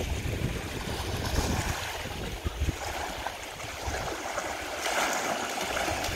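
Wind gusting on the microphone, with a steady hiss of moving water that swells about five seconds in.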